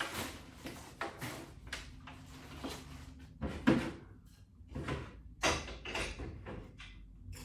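Irregular knocks, clunks and rustles of exercise gear being handled and moved about, about a dozen short sounds of uneven loudness.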